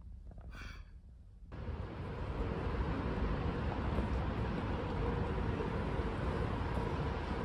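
Quiet room with a brief faint high-pitched sound about half a second in. About a second and a half in it changes abruptly to steady city-street ambience, an even hum of traffic and street noise.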